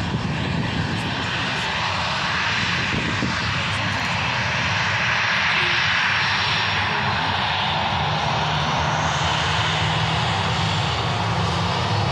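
Jet engines of a Boeing 737-800 (CFM56-7B turbofans) running at taxi power as the airliner taxies past close by: a steady loud rushing noise with a low hum underneath.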